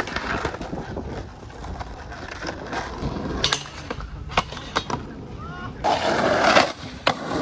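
Skateboard wheels rolling on rough asphalt, with several sharp clacks and knocks of the board on a low rail and the ground between about three and five seconds in, then a loud rush of noise around six seconds in.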